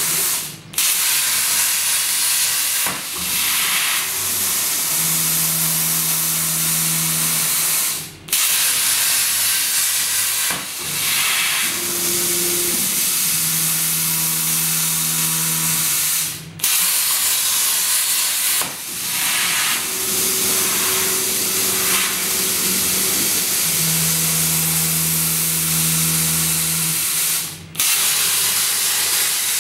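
CNC plasma cutter's torch hissing steadily, broken by four brief sudden gaps. A low hum comes and goes a few times underneath.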